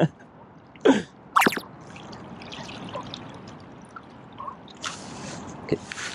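Water lapping and trickling, with two short, sharp breaths about a second in.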